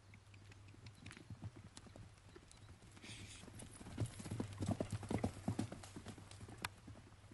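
Hoofbeats of a Thoroughbred stallion cantering loose on grass, a run of uneven thuds that grows louder about four seconds in.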